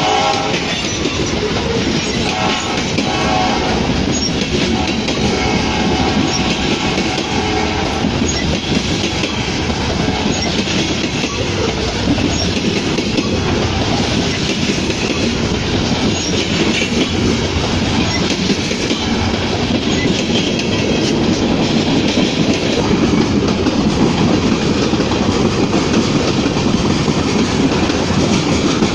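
Freight cars of a train rolling past close by on a curve: a steady, loud rumble of steel wheels on rail with clickety-clack over the rail joints. A pitched tone sounds over the train noise for the first several seconds, then the plain rolling noise carries on.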